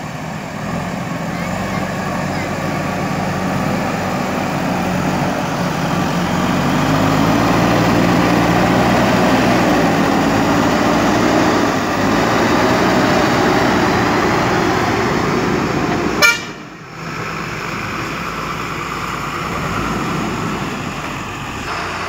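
JCB 3DX backhoe loader's diesel engine working under load, revving up and down as the front bucket pushes soil. About two-thirds of the way through there is a sharp click and the engine sound drops to a quieter, steadier run.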